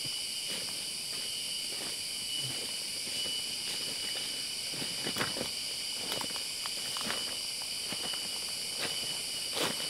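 A steady, high-pitched insect chorus of the forest, several shrill tones held at once, with footsteps crunching and rustling through dry leaf litter and undergrowth, heavier about halfway through and near the end.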